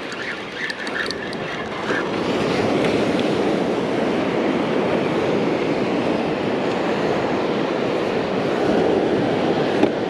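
Wind rushing over the microphone with surf breaking on the beach: a steady rushing noise that grows louder about two seconds in.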